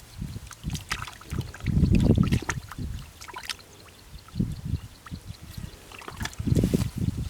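Splashing and sloshing in shallow muddy rice-field water, in irregular bursts with small wet clicks, loudest about two seconds in and again near the end.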